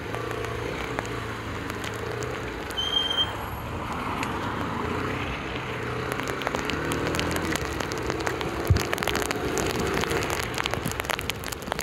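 Motorcycle engine running as the bike rides along a wet road in heavy rain, its pitch shifting and climbing partway through, with raindrops ticking on the microphone more and more often. A single thump about nine seconds in.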